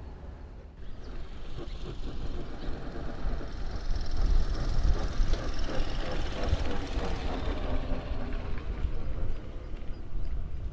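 Bombardier Primove battery-powered low-floor tram passing close by: a rumble with a faint electric whine that builds from about a second in, is loudest around four to five seconds in, then eases slightly.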